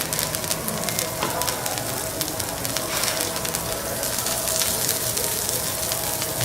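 Food frying on a teppanyaki griddle: a steady sizzle with many small crackles.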